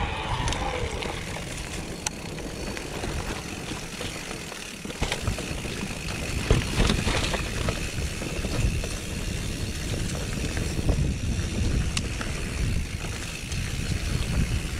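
Mountain bike riding down a rough singletrack trail: a steady rumble of tyres on dirt and stones, with scattered sharp knocks and rattles as the bike hits bumps.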